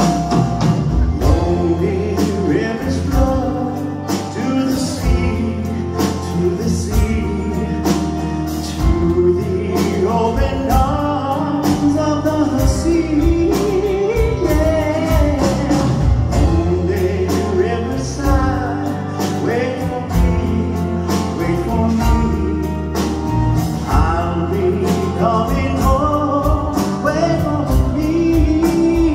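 Live band performance: a male lead singer singing into a microphone over electric bass and a drum kit keeping a steady beat.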